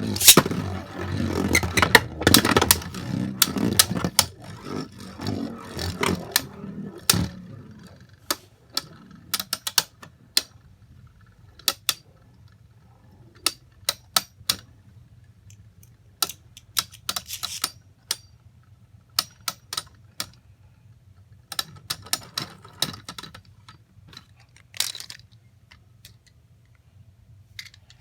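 Small hard plastic parts clicking and tapping, scattered sharp clicks at irregular intervals after a few seconds of dense, loud rattling noise.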